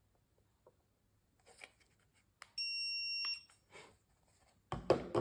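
D-Control electronic training collar's receiver giving one steady high beep lasting just under a second: its sound-tone signal triggered from the remote, showing that the collar is paired again. A soft click comes just before the beep, and a short knock of handling comes near the end.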